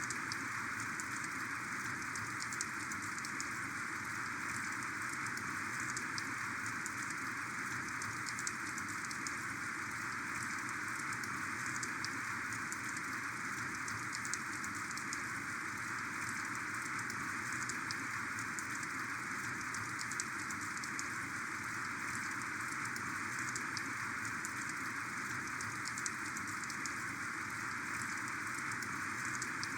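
Heavy rain falling steadily, a dense even hiss with many individual drops ticking through it.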